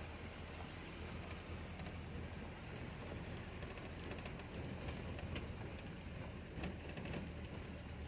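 Car driving, heard from inside the cabin: a steady low engine hum under road and wind noise, with a few faint knocks.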